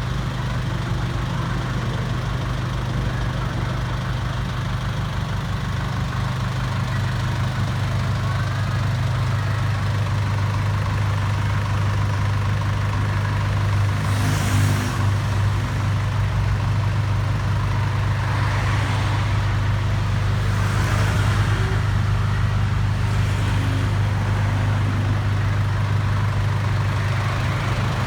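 Vehicle engine idling steadily, a low even hum, with a few brief rushes of noise about halfway through and again later.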